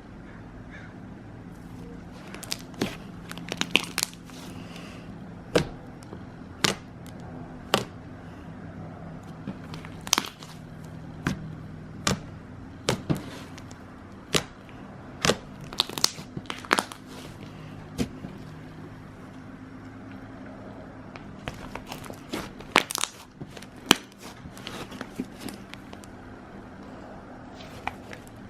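Slime being squeezed and poked by hand, giving irregular sharp clicks and pops, busiest around the middle and again near the end, over a steady low hum.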